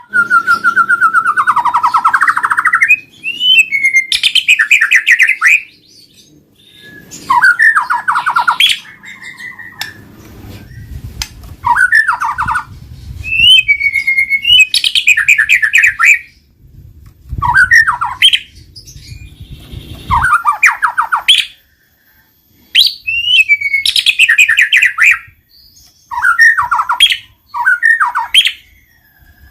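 White-rumped shama singing loudly: repeated phrases of rapid trills and gliding whistles, each a second or two long, separated by short pauses. A low rumble sits under the song in the middle stretch.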